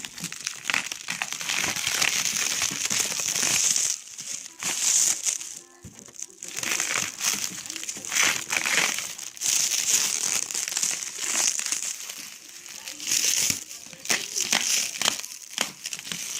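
Packing material rustling and crinkling as it is handled and pulled out of a shipping box, with a run of small crackles and a couple of brief pauses.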